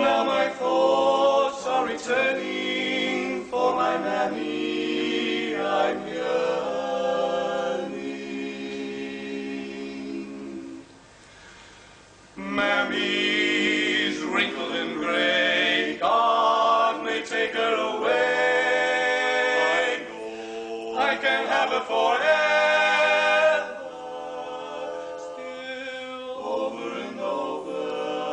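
Male vocal quartet singing a cappella in close harmony. There is a brief hush about eleven seconds in, then the four voices come back in loud.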